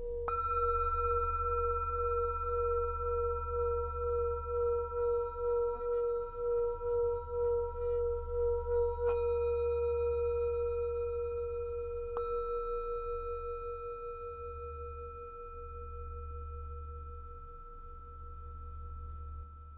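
Tibetan singing bowl struck three times: about a second in, at about nine seconds and at about twelve seconds. Each strike rings on with a slow pulsing wobble in its low tone and dies away gradually, over a steady low hum.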